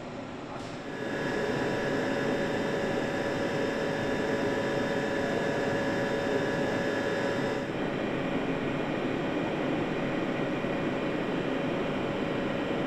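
An engine running steadily on a test bench in an engine test cell: a continuous mechanical hum with several constant tones. It swells up about a second in after a brief click, and its tone shifts slightly near eight seconds.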